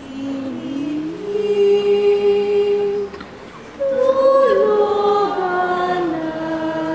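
A woman singing unaccompanied, long held notes that step up and down in pitch, with a short break about three seconds in.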